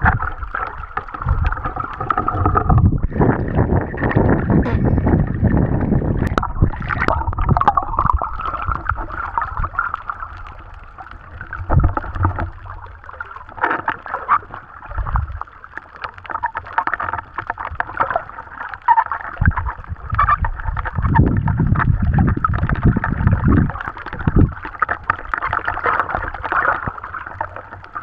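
Muffled underwater sloshing and gurgling from a snorkeler swimming, picked up through a waterproof action-camera housing, with low rumbling surges as water moves against the housing and a steady mid-pitched hum underneath.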